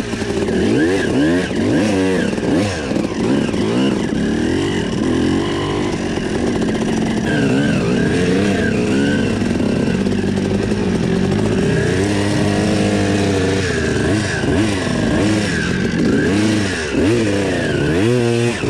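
Enduro dirt bike engine revving up and down over and over as it rides a rough, muddy trail, heard close up from on board.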